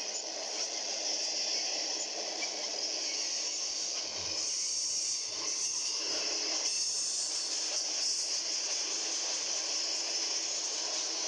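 Double-stack intermodal freight train rolling past: a steady noise of wheels on the rails with a strong hiss.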